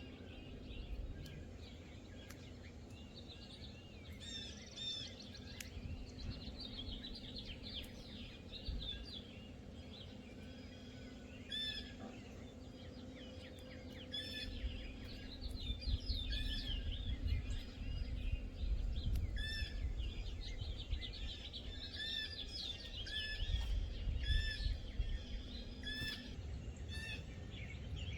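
Several songbirds chirping and calling, short repeated calls coming every second or two and overlapping, over a low steady rumble.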